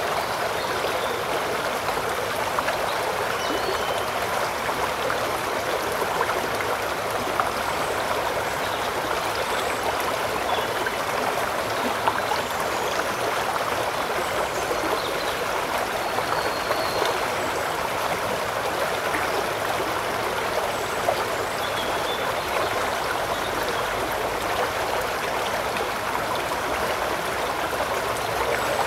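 River water running steadily, a constant rushing trickle with no change in level.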